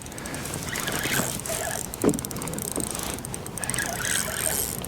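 Fishing reel being cranked with a fast run of fine mechanical clicks as a hooked striped bass is reeled in, over water and wind noise.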